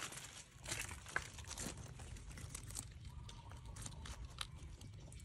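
Dry fallen leaves crackling and rustling in irregular bursts as rabbits move about in them.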